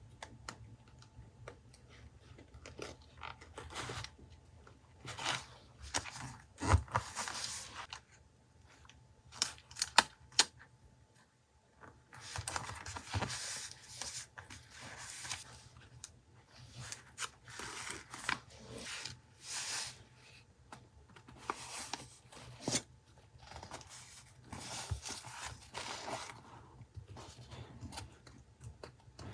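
Paper and stationery being handled for a collage journal page: rustling and crinkling with light taps, clicks and scissor snips in irregular bursts.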